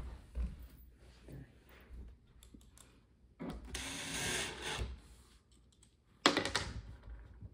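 Cordless drill/driver driving small Phillips screws into a thin cabinet back panel in two short runs, about three and a half seconds in and again near the end, the second starting suddenly and loudest. Light clicks and rattles of screws and panel being handled come before the first run.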